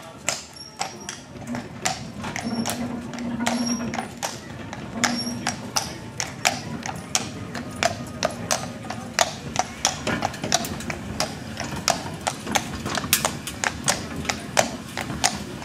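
Hooves of a heavy draught horse clip-clopping on stone setts as it walks, hauling a horse-drawn tram; the hoofbeats settle into a steady walking rhythm of about two a second after the first few seconds.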